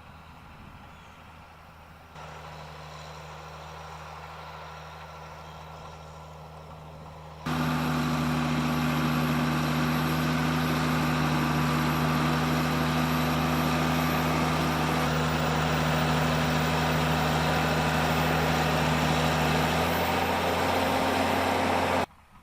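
Heavy farm machine's diesel engine running steadily at a constant pitch. It jumps abruptly louder twice, about two seconds in and again at about seven seconds, and cuts off suddenly near the end.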